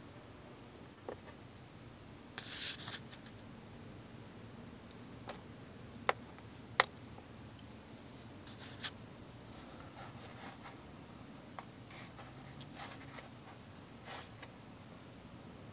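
Small handling noises on a workbench: a short scraping rustle, two sharp clicks a little later, then another brief rustle ending in a click, followed by faint scratching.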